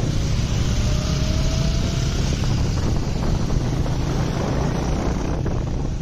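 Steady, loud wind buffeting the microphone over the running noise of a vehicle on the move, with a faint rising tone in the first two seconds.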